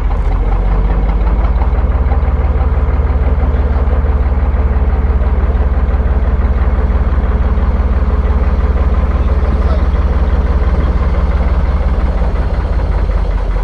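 A canal boat's diesel engine running steadily and loudly at low revs close by, an even low-pitched pulse.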